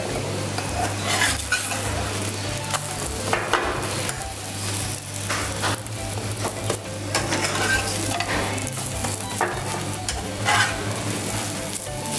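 Food sizzling in a hot pan while it is stirred, with irregular scrapes and knocks of the utensil over a steady low hum.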